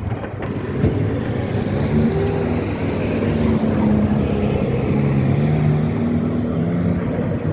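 Road traffic with a vehicle engine running close by, its low hum shifting slowly in pitch.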